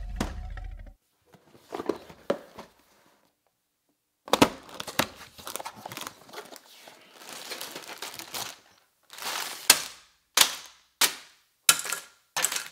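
Lego parts bags crinkling and rustling as a cardboard set box is opened and the bags are pulled out of it. Near the end the plastic bags are dropped onto a table one after another: a quick run of short, sharp slaps with a rattle of bricks inside.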